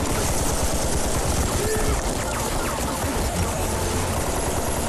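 Battle sound effects: dense, continuous rifle and machine-gun fire, with men's voices shouting beneath it.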